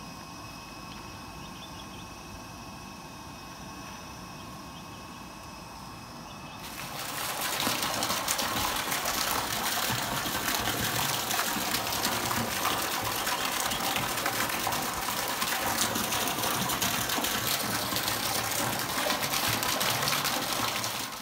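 Water gushing from a PVC pipe and splashing into a concrete fish tank that is being refilled after the harvest. The flow starts suddenly about a third of the way in and then runs strong and steady.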